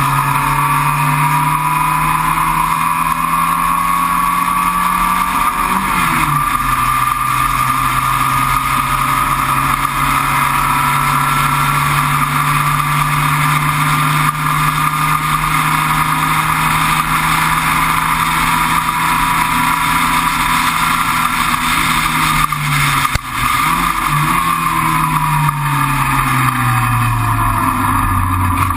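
Sports racer's engine heard onboard under hard acceleration. The pitch climbs, drops sharply at an upshift about six seconds in, then holds a long, slowly rising pull. About two-thirds through it dips with a couple of quick jumps, then falls steadily near the end as the car slows.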